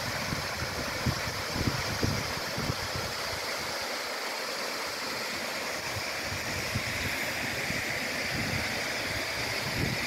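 Steady rushing of a waterfall cascading down a rock face, with irregular low rumbles of wind on the microphone, mostly in the first few seconds.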